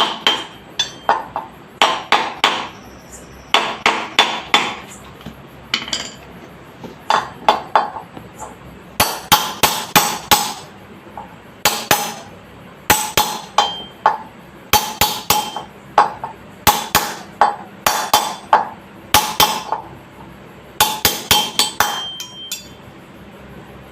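A hammer taps a ring into the rear wheel hub of a Yamaha Crux around the axle bearing. It comes in quick bursts of three to six sharp, ringing blows, with short pauses between. Driving the ring fully home takes up the bearing play that made the wheel shake.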